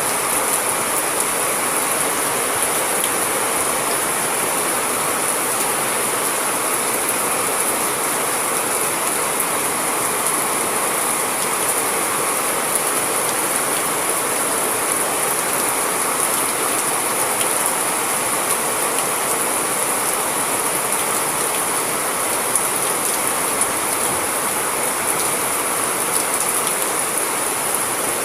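Steady rain falling, an even hiss with fine patter and no thunder.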